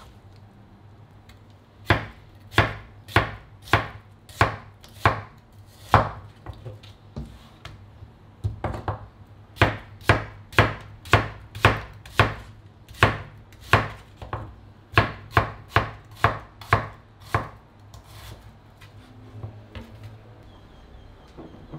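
Chef's knife slicing vegetables, onion among them, on a wooden cutting board: a sharp knock of the blade on the board with each cut, about one to two cuts a second. The cutting starts about two seconds in, slows briefly in the middle and stops a few seconds before the end.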